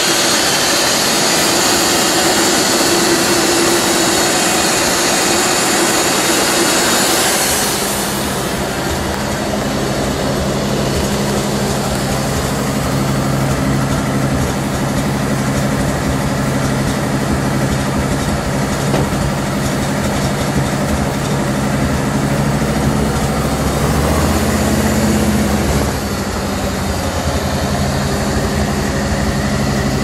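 The factory-supercharged 312 cubic-inch V8 of a 1957 Ford Thunderbird F-code idling steadily. For the first several seconds it is heard close at the open engine bay with a lot of hiss from the blower and belts; after that it is heard at the rear as a low, even exhaust idle, with a brief swell in the engine note about three-quarters of the way through.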